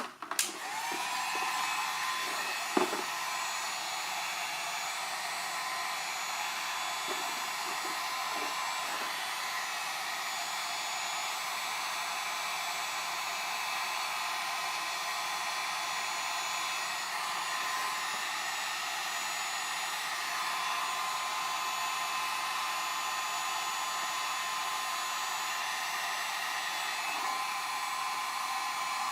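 Electric heat gun switched on, its fan motor spinning up with a rising whine, then blowing steadily with a hiss while it warms the vinyl overlay film. There is a sharp knock about three seconds in.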